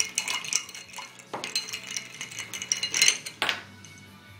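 Ice cubes clinking and knocking against the sides of a glass tumbler of water as a cat paws at them, in a quick irregular run of clicks that dies away about three and a half seconds in.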